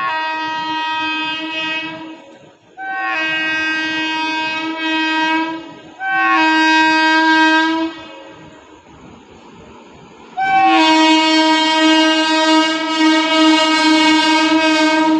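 Electric locomotive's horn sounding on an approaching express train. There are three blasts of two to three seconds each with short gaps, then a pause of about two and a half seconds, then a longer, louder blast held as the train arrives.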